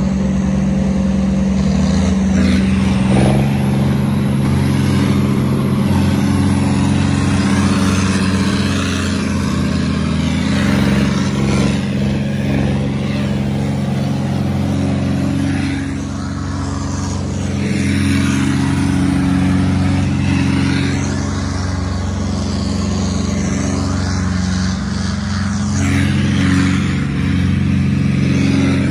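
Farm tractor's diesel engine running steadily at road speed, heard from on board, with wind and road noise over it.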